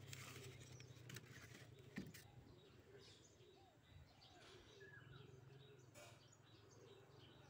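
Near silence with faint background bird chirps: a few short rising and falling calls in the middle of the stretch. There are a few soft clicks about one and two seconds in, and one near the end.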